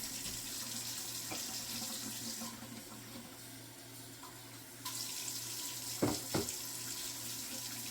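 A steady hiss, like running water, that drops away for about two seconds partway through and then comes back, over a faint low hum, with two brief soft knocks near the end.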